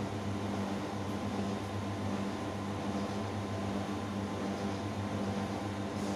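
Large-format digital banner printer running while it prints: a steady machine hum with fan-like noise.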